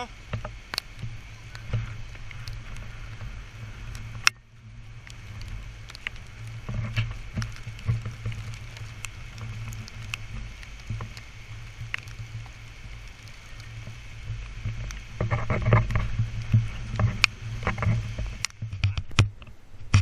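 Low wind rumble on the camera microphone, with footsteps and handling knocks from walking with the camera. The knocks and scuffs grow busier near the end.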